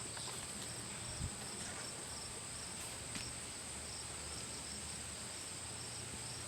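Crickets chirping steadily in a high, continuous drone, over a faint low hum, with one small click about a second in.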